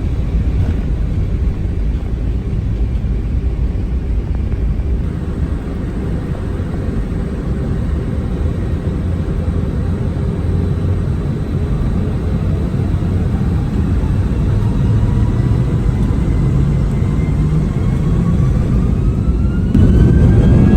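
Airbus A319 jet engines heard from inside the cabin: a steady low rumble, joined about halfway through by a rising whine as the engines spool up, and getting louder with a step up near the end.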